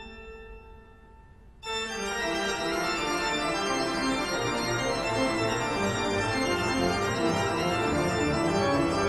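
Background organ music: a held chord fades away, then about a second and a half in a new passage of many quick notes starts abruptly and carries on.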